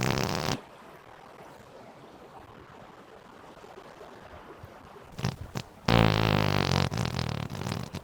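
Fake fart noises: a low buzzing fart cutting off about half a second in, then a quiet stretch, two short blasts about five seconds in, and a long, loud, sputtering fart from about six seconds on.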